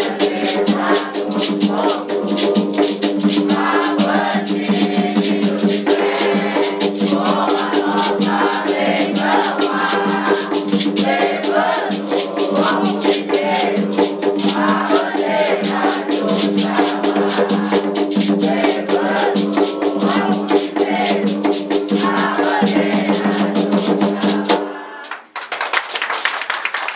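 An Umbanda hymn sung by a small group to an atabaque hand drum and a maraca shaken in fast, steady strokes. The music cuts out briefly near the end and then starts again.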